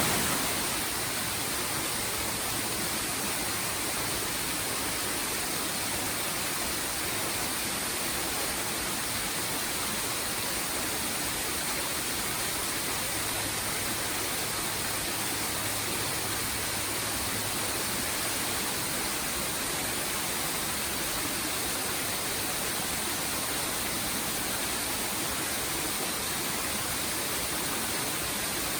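Waterfall: a steady, unbroken rush of falling water with a bright hiss and no change in level.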